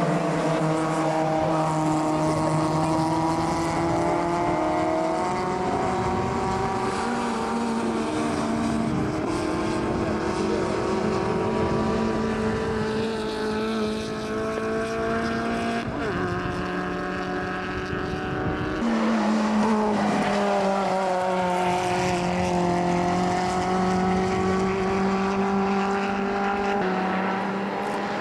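Race cars' engines running at high revs as they lap a circuit. The engine note slides slowly in pitch and steps sharply down and back up a few times, as with gear changes and braking.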